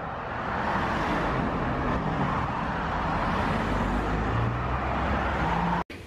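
Steady road traffic noise of cars going by, with an engine's low hum coming in about four seconds in; it cuts off abruptly just before the end.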